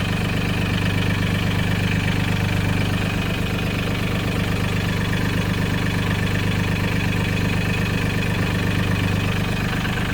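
Mahindra 1626 tractor's diesel engine idling steadily.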